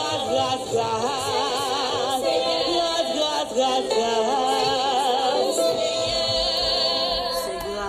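Music with a singing voice, sung with a strong vibrato.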